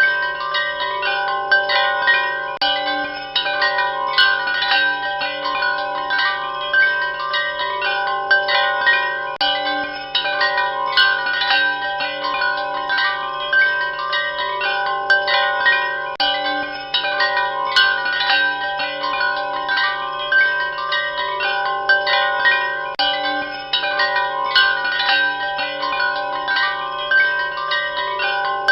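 Wind chimes ringing continuously, many tuned tubes struck at irregular moments so that their tones overlap and sustain, over a faint steady low hum.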